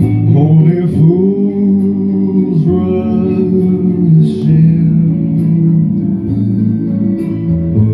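A young man singing through a handheld microphone over backing music, holding long notes.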